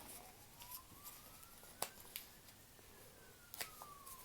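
Folded paper crackling and creasing in a few sharp clicks as the origami model is pressed flat. Underneath runs a faint distant siren that wails slowly up and down.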